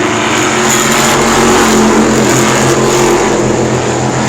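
Race car engines running at speed around an asphalt oval: a loud, steady, droning mix of several engines.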